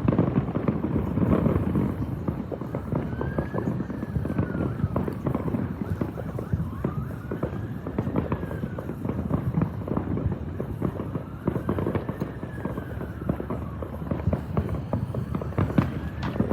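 A police car siren wailing in a slow rise and fall about every four seconds, over a continuous crackle and popping of fireworks.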